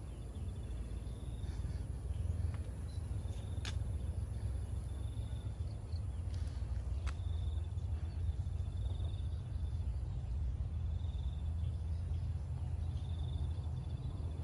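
Rural outdoor ambience: a steady low rumble with a short, high-pitched chirping trill that repeats about every two seconds, and a few faint clicks.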